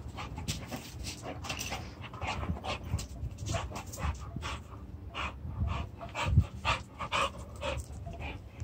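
A dog panting hard after running, quick breaths about three a second.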